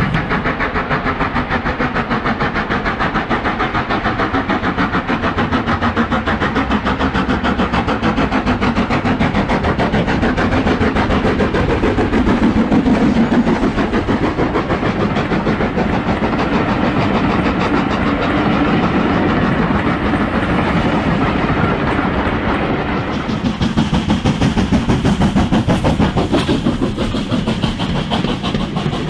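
OO gauge model steam train running on the layout's track: a steady, fast clicking rattle of the wheels and coaches over the rail joints, growing a little louder and pulsing near the end.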